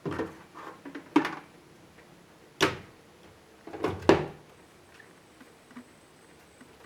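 Lid of a Panasonic twin-tub washing machine being closed and handled: four knocks and clatters, the sharpest about two and a half and four seconds in.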